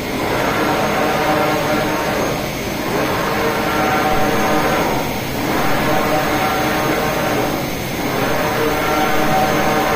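UV flatbed printer running while printing onto acrylic discs: a steady whir of the print-head carriage's motors and fans, with a brief dip in level about every two and a half seconds.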